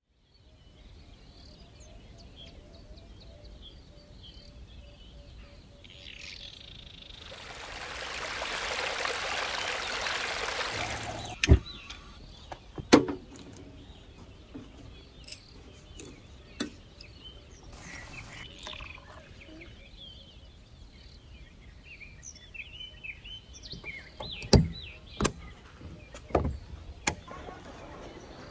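Water running from a caravan's tap into a metal kettle for a few seconds, then stopping suddenly. Sharp clicks and knocks follow, and later a plastic latch on the caravan's side clicks, with birds chirping faintly in the background.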